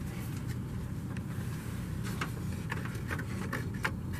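Soft rustles and light taps of a thin cardboard insert being folded and fitted against the plastic wall of a toy palace, mostly in the second half, over a steady low hum.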